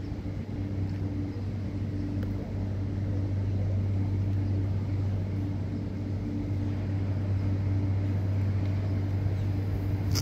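ÖBB class 1144 electric locomotive standing with its equipment running, a steady low hum with a fainter higher tone above it.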